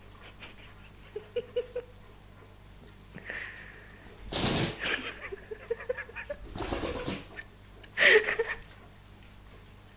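Dog sneezing three times in short, noisy bursts, the last and loudest about eight seconds in.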